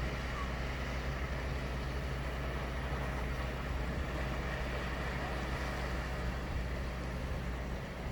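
Daytime sea ambience: waves washing as a steady, even noise over a constant low rumble.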